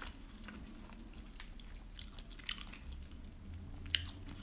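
Faint chewing and mouth noises of people eating, with scattered small clicks; a sharper bite into a pizza slice near the end.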